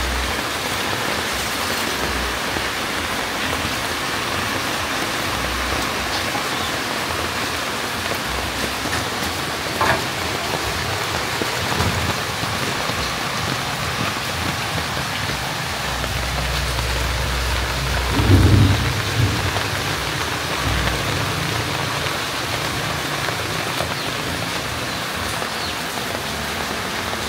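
A steady hiss that sounds like rain, with a low rumble swelling and fading about eighteen seconds in.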